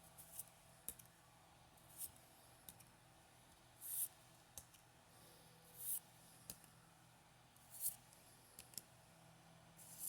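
Pokémon trading cards being handled and slid one past another: soft scattered clicks and three brief swishes about two seconds apart, as cards are flipped through one by one.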